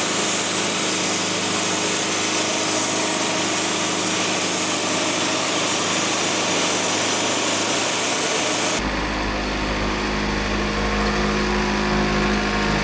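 Sawmill engine running steadily while a log is sawn, with a bright hiss over the engine hum. About nine seconds in the sound changes abruptly to a deeper engine drone with the hiss gone.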